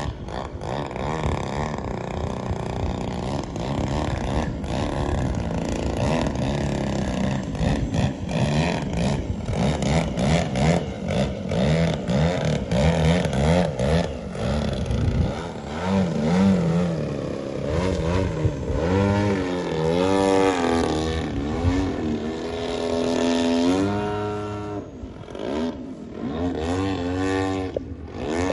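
Radio-controlled aerobatic model plane's engine and propeller. It runs steadily at first, then its pitch rises and falls again and again as the throttle changes and the plane swoops through manoeuvres.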